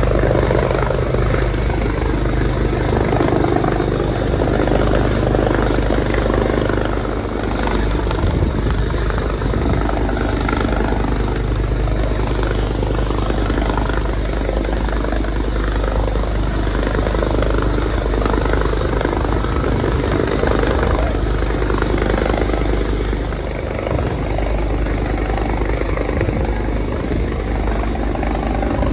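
Rescue helicopter running loud and steady, its rotor and engine sound filling the air during a medical airlift.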